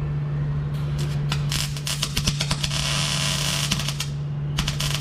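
Electric arc welding that crackles and sputters in uneven bursts, starting about a second in and breaking off briefly near the end, over a steady low hum. The welder blames the stuttering arc on a bad ground connection.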